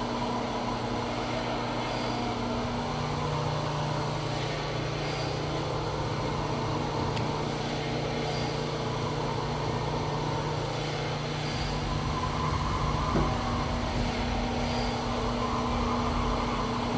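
Steady hum of machine-shop machinery with several steady low tones. One tone shifts about three seconds in and drops out about thirteen seconds in, while a low rumble rises toward the end.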